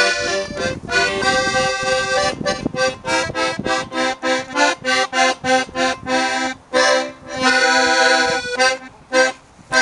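Piano accordion playing a tune in chords: a run of short, detached chords at about three to four a second, then a longer held chord about eight seconds in, after which the playing thins out near the end.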